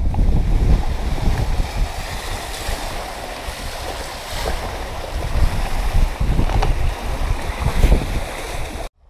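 Wind buffeting the microphone and water rushing past the hulls of a sailing catamaran under way, a steady rumble and wash heard from the bow netting. The sound cuts off suddenly just before the end.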